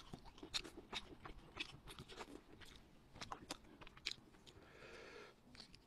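Close-miked eating of braised rabbit head: faint crunches, clicks and wet mouth sounds as pieces are bitten, chewed and pulled from the bone.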